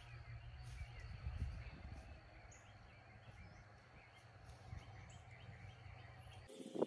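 Faint outdoor ambience: a steady low rumble with a few faint, high bird chirps. The rumble cuts off abruptly near the end.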